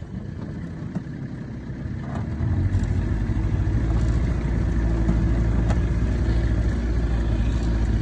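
A jon boat's motor running low, then throttled up about two and a half seconds in and running steadily as the boat gets under way.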